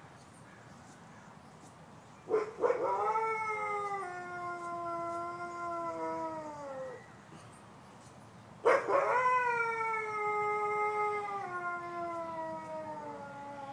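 A wolf howling: two long howls, one about two seconds in and another about nine seconds in. Each rises sharply at the start, is held while it slowly falls in pitch, and slides down at the end.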